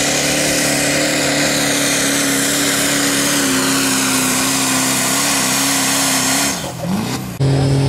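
Duramax turbodiesel pickup engine running flat out at steady high revs under the load of a pulling sled, its pitch sagging slightly midway. Near the end the revs fall away sharply, then a sudden cut to another loud engine.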